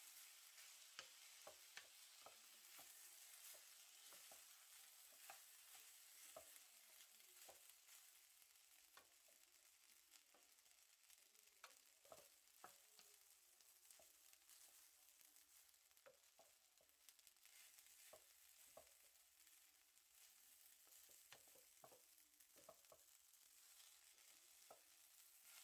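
Faint sizzling of Spam fried rice frying in a pan, with scattered scrapes and taps of a spatula stirring it, a few a second.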